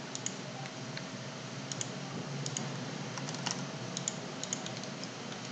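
Faint, irregular tapping on a computer keyboard, a dozen or so separate clicks.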